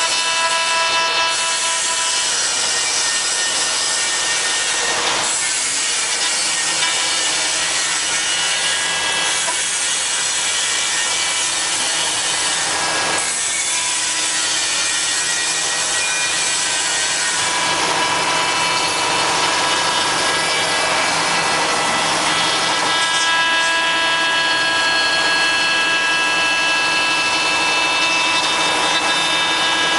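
CNC router spindle cutting wood: a steady high whine over a dense cutting hiss, its pitch shifting a few times along the way.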